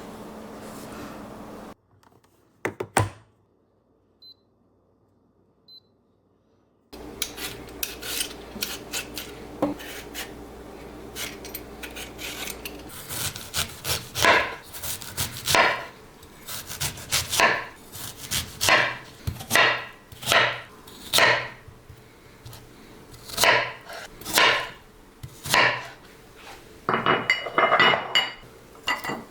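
Repeated scraping strokes in a kitchen, about one a second, starting after a few seconds of near silence and ending in a quicker flurry near the end.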